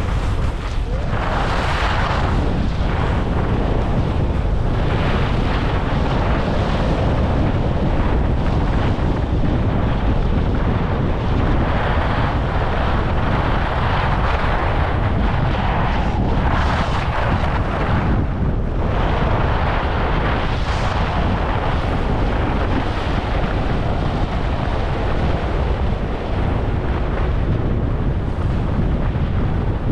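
Wind buffeting the GoPro HERO11's microphone at skiing speed, a steady rumble, while the skis hiss and scrape over the snow, rising every few seconds as turns are made.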